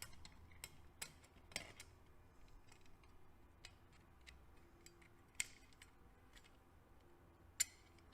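Scattered light clicks and taps of small metal engine parts being handled and fitted by hand, with two sharper clicks, one past the middle and one near the end.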